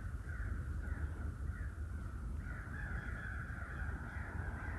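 Crows cawing repeatedly, many calls overlapping in a steady chatter, over a low steady rumble.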